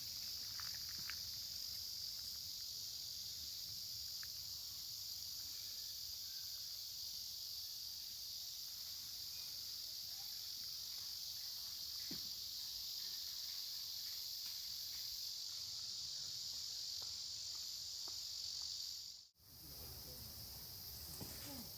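Steady, high-pitched chorus of insects in summer, a continuous shrill hum with a few faint clicks underneath; it cuts out abruptly for a moment near the end and then resumes.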